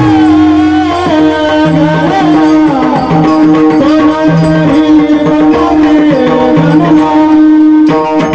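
Devotional folk music: a wordless sung alap, the voice gliding and bending in long melismatic phrases over a steady held drone note, with drum accompaniment keeping a regular beat.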